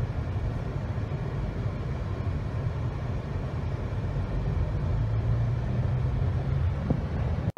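Steady road and engine rumble heard from inside the cabin of a moving car, mostly low in pitch. It cuts off abruptly near the end.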